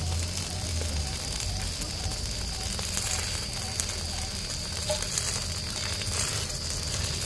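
Aloo tikkis sizzling and crackling steadily in shallow oil on a large flat iron tawa, being fried a second time to make them crisp.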